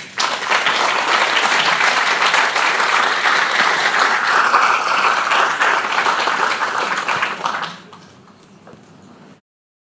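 Audience applauding for about seven and a half seconds, then dying away to a faint tail; the sound cuts off abruptly shortly before the end.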